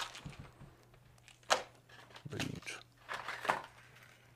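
Clear plastic blister pack of fishing line rattles being handled and pried open: a few sharp plastic crackles and clicks.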